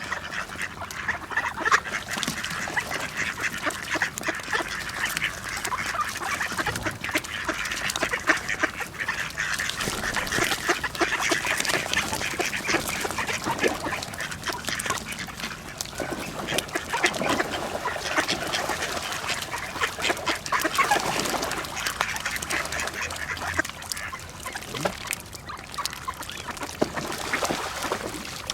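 A large flock of mallard ducks quacking all at once in a dense, unbroken chorus of overlapping calls, the excited din of ducks feeding.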